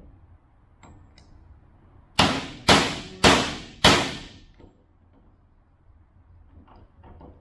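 Four ringing hammer blows about half a second apart on a steel socket, driving a tone ring down onto a differential carrier.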